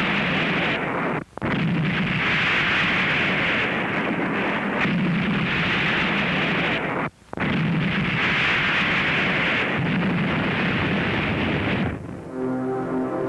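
Dense, continuous din of a coastal-defence artillery and gunfire barrage, loud throughout and briefly breaking off twice. Near the end the firing stops and music takes over.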